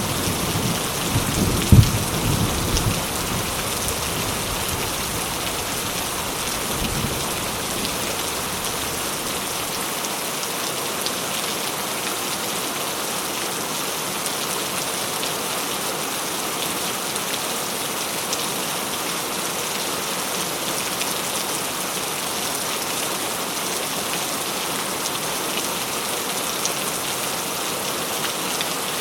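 Heavy rain falling steadily. A thunder rumble fades out in the first few seconds, with a sharp crack about two seconds in.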